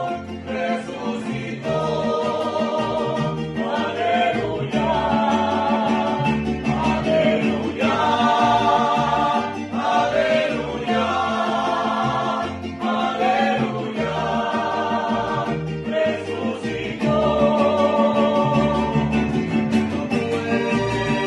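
Mariachi-style ensemble rehearsing: men singing long held phrases with vibrato over strummed guitars and a plucked bass line. Trumpets come in near the end.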